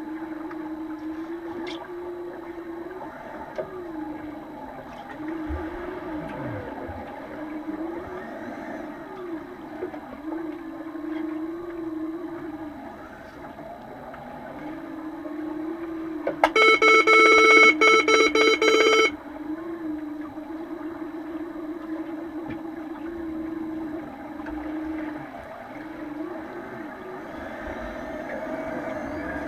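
Underwater pool ambience picked up by a submerged camera: a wavering hum that drifts up and down in pitch over a low wash of water noise. About sixteen seconds in, a loud buzzing horn tone sounds for about two and a half seconds and cuts off abruptly, the kind of signal horn used to stop play in underwater rugby.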